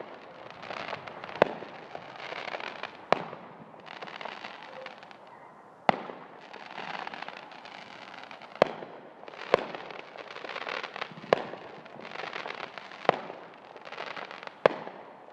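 Fireworks going off: eight sharp bangs, one every one to three seconds, with a steady rush of noise between them.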